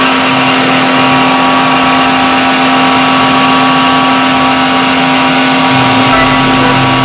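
Pressure washer running steadily with a constant hum while its jet sprays water onto the fins of an air-conditioner coil.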